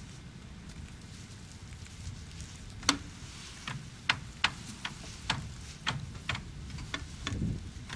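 Rime ice cracking and breaking away from a frozen transmission tower: about ten sharp, irregular clicks and cracks starting about three seconds in, over a low steady rumble of wind.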